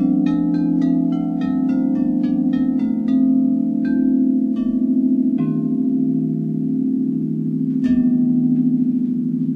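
Frosted crystal singing bowls struck with mallets: a rapid run of strikes, then a few spaced single strikes and one harder strike near the end, over a steady layered drone of ringing bowl tones with a slow wobble.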